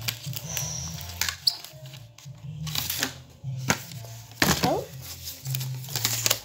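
Plastic packaging and pens being handled, giving scattered sharp clicks and rustles.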